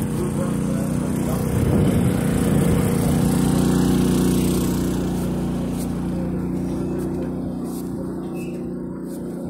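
An engine running steadily, growing louder about two seconds in and easing off again over the second half.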